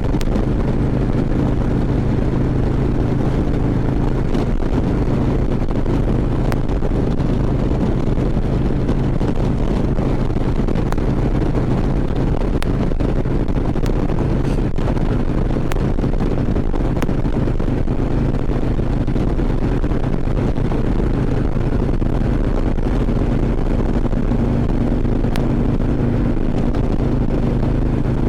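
Harley-Davidson V-twin motorcycle engine running steadily at cruise, with rushing wind and road noise.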